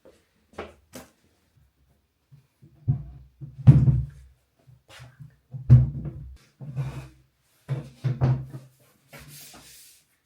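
Household objects being handled: a string of knocks and dull thumps, heaviest a few seconds in, with a short scraping rub near the end.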